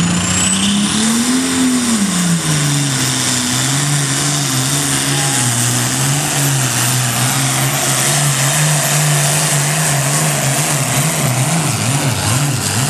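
Diesel pulling tractor's engine running flat out under load as it pulls the sled, pouring black smoke. Its pitch rises briefly about a second in, then drops and holds, wavering. A high turbocharger whistle climbs at the start and then holds above the engine.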